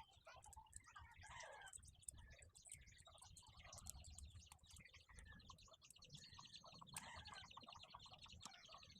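Faint birds chirping and twittering, with a rapid trill running through the second half.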